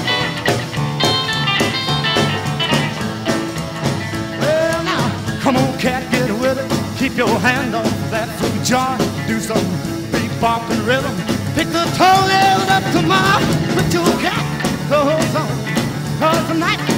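Rockabilly music playing, the rock and roll song that runs under the whole slideshow.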